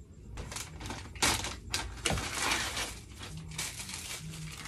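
T-shirts and their plastic packaging being handled: plastic crinkling and fabric rustling, with a run of sharp crackles in the first two seconds, then softer rustling.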